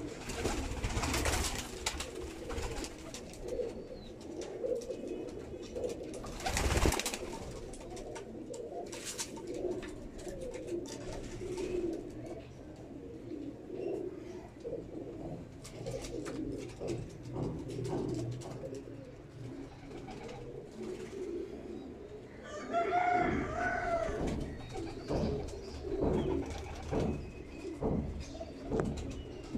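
Imam Deen kamagar pigeons cooing over and over, low and soft. There are a few short bursts of noise, the loudest about seven seconds in, and a higher, clearer call about three-quarters of the way through.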